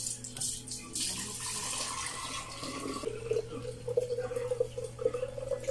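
Liquid poured through a mesh strainer into a large glass jar, splashing at first. In the second half a steady hollow tone from the filling jar comes up over the pour.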